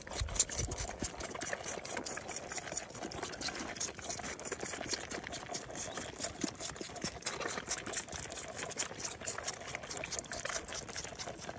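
Goat kids sucking milk from bottle nipples: a rapid, even run of wet sucking smacks.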